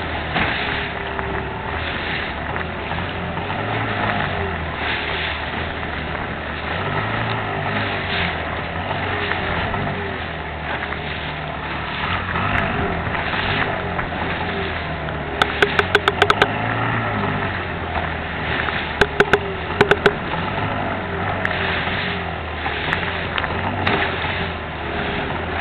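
Outboard motor of a rigid inflatable boat running under way through choppy water, its low drone shifting in pitch now and then over a steady rush of wind and spray. Two short bursts of sharp knocks come about halfway through and again a few seconds later.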